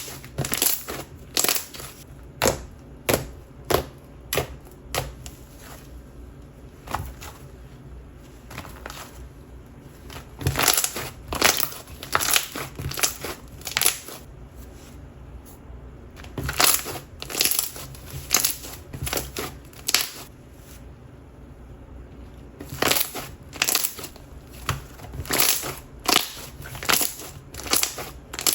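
Thick and glossy slime being squished and folded by hand, making many sharp pops and clicks as air bubbles burst. The pops come in clusters, with quieter squishing between them.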